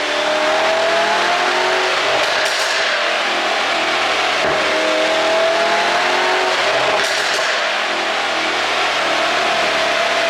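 Mercedes-AMG E63's twin-turbo V8 pulling under acceleration, its pitch rising steadily. Brief exhaust crackles come twice, about two and a half and seven seconds in, from an ECU tune set to make exhaust pops.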